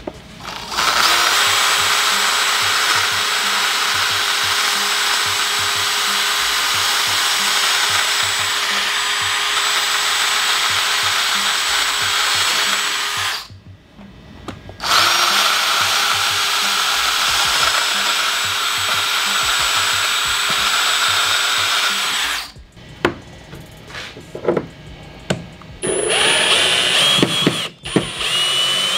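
Cordless drill boring pilot holes through two stacked plywood boards: a long steady run, a short stop, then a second run of about eight seconds. A few knocks and clicks follow, and near the end a drill starts again with a rising whine.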